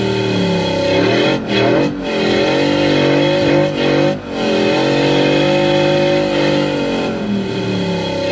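A four-wheel drive's engine revving under load as it drives through soft beach sand. The engine note rises and falls, dipping briefly about a second and a half in, again a moment later, and once more around four seconds in.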